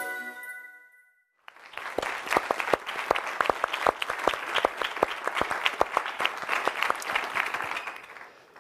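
The tail of a music jingle fades out in the first second. After a brief silence, a small audience claps steadily, with individual claps distinct, and the clapping dies away near the end.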